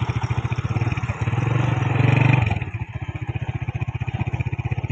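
Tractor engine chugging with an even, rapid beat as it hauls a heavily overloaded trolley. It works harder and louder for about a second and then eases off about two and a half seconds in.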